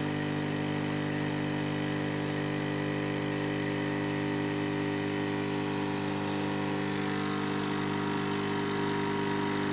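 Nescafé Dolce Gusto pod coffee machine's pump running as it brews a pod into the mug, a steady even hum-buzz.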